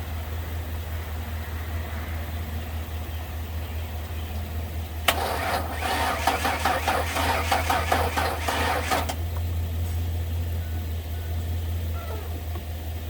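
Ford Ranger starter cranking the engine for about four seconds in an even, rapid rhythm, starting suddenly and stopping without the engine catching, over a steady low hum. The owner puts the failure to start down to a wrong firing order and a battery that is too dead.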